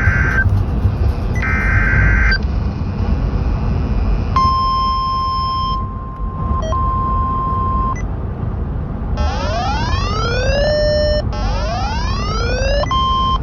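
Emergency Alert System tones on a NOAA Weather Radio broadcast. Two short bursts of digital header data come first, then a steady high alert tone in two stretches, then two rising swept tones about a second and a half long each, all over constant radio hiss.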